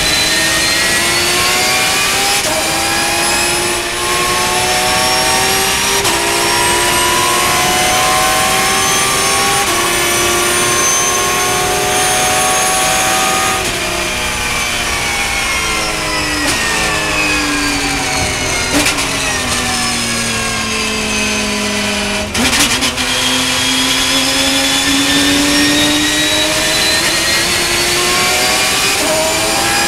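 Porsche Cup race car's flat-six engine heard from inside the cockpit. It runs up through the gears, its pitch climbing and then dropping back at each upshift, then falls in pitch for several seconds as the car slows. A sharp crack comes about three-quarters of the way through, and the engine then pulls hard again.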